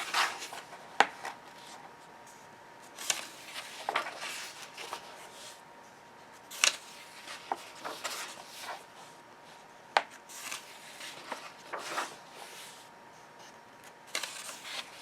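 Pages of a paperback coloring book being turned by hand: paper rustling and sliding with sharp flicks every second or few.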